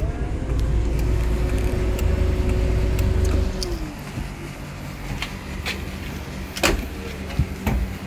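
Proton Saga FLX engine idling, then switched off about three and a half seconds in, its hum sliding down as the rumble dies away. A few sharp knocks and clicks follow, one much louder than the rest.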